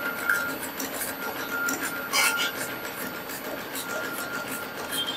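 UME multi-needle computerized embroidery machine stitching at speed: a fast, even mechanical rattle with a steady high whine.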